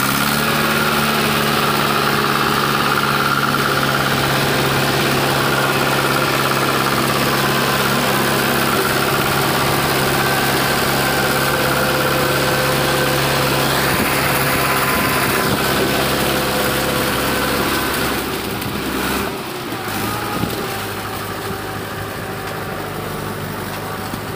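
Mahindra tractor's diesel engine running steadily as the tractor churns through wet clay on iron cage wheels. About 19 seconds in, the engine gets quieter and its note changes.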